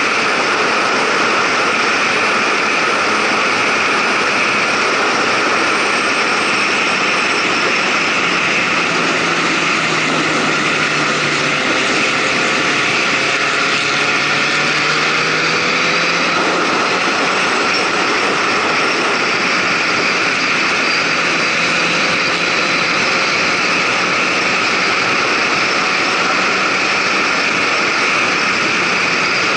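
Wind rushing over the microphone of a motorcycle ridden at highway speed, with the bike's engine running faintly under it. The engine note drops in pitch as the bike slows about ten seconds in, then climbs again as it speeds back up.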